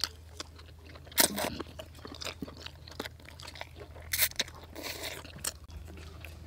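A person eating instant noodles close to the microphone: slurping noodle strands and chewing with small wet clicks, with louder slurps about a second in and again about four seconds in.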